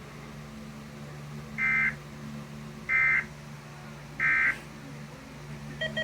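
Three short bursts of NOAA Weather Radio SAME data tones, the end-of-message code that closes an alert. The bursts are evenly spaced about 1.3 seconds apart over a steady low hum.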